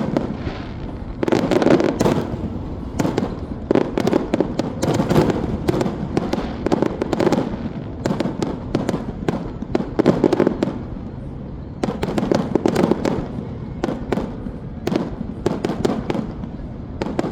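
Fireworks going off in rapid succession, dense cracks and bangs that come in waves for the whole stretch.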